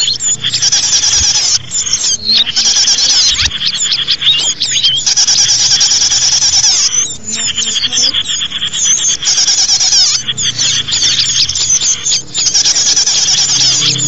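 Dense, high-pitched chattering and trilling of small birds, many calls overlapping in a rapid stream, played as a lure recording to attract small birds. It breaks off briefly three times.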